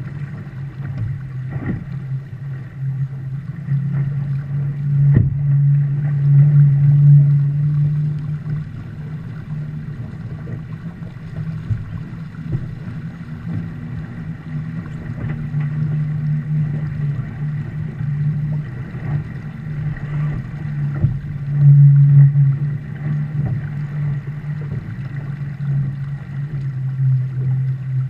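A Viper sportboat sailing fast under spinnaker: a steady low rushing drone of water along the hull and wind, heard through a camera mounted on deck. It swells louder twice, with a few faint knocks.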